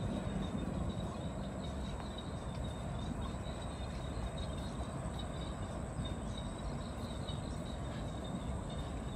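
Steady low rumble of distant traffic, with a faint, high pulsing tone over it.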